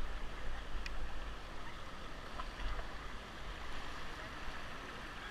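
River water rushing and splashing around a paddle raft, with a low rumble underneath and a light click about a second in.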